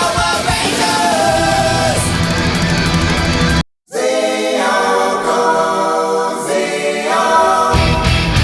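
Background music with a sung vocal line, cutting out completely for a moment about halfway through; the bass drops away after the gap and comes back in near the end.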